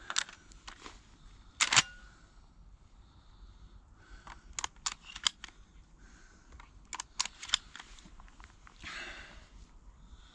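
A series of sharp mechanical clicks and knocks from a shotgun being handled and reloaded, in small clusters with the loudest knock near the start, and a short rustle near the end.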